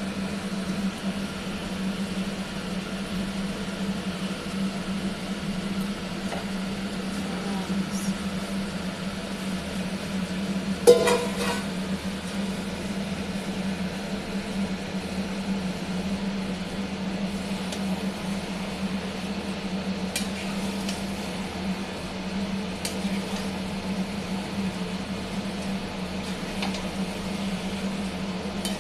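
Curry cooking in a pot on the stove: a steady low hum over faint sizzling, with one loud metal clank of a utensil on the pot about eleven seconds in and a few light clinks later.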